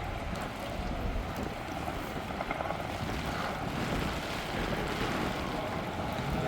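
Low, steady engine rumble, with wind buffeting the microphone.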